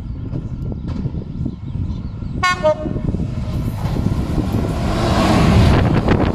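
Class 66 diesel freight locomotive giving a short horn toot about two and a half seconds in, then drawing close and passing, its EMD two-stroke diesel engine and wheels growing louder to a peak near the end as the cement tank wagons start rolling by.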